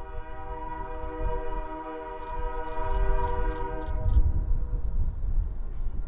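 Diesel locomotive air horn sounding one long chord-like blast that cuts off about four seconds in, with a run of quick sharp ticks near its end. A low rumble runs underneath and grows louder once the horn stops, with strong wind buffeting the microphone.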